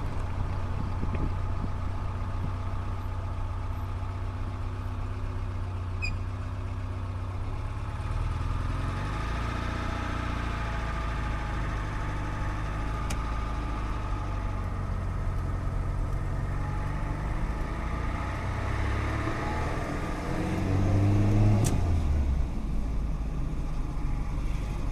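A motor vehicle's engine running steadily as a low hum, its pitch rising and falling twice as the engine speed changes, with a couple of sharp clicks.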